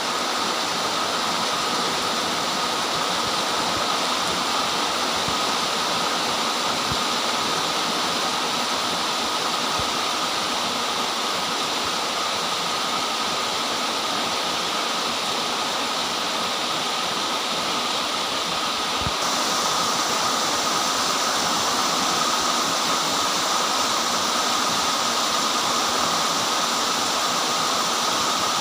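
Very heavy, torrential rain pouring down in a steady, dense hiss. It grows slightly brighter and louder about two-thirds of the way through.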